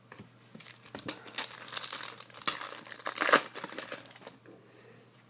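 Wrapper of an Upper Deck Black Diamond hockey card pack crinkling and tearing as it is opened, a run of crackles lasting about three seconds.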